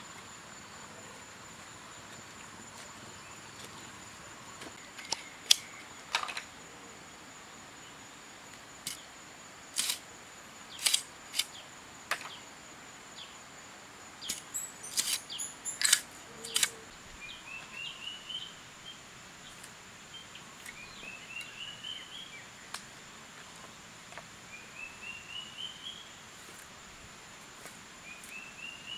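Machete blade striking and splitting bamboo: a dozen or so sharp, separate knocks, most of them in the first half. After that, a bird repeats a short rising trill every few seconds.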